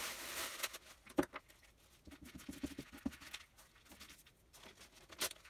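Tissue paper rustling as it is handled, then a glue stick rubbed onto paper in a quick run of short strokes, with a sharp tap near the start and another near the end.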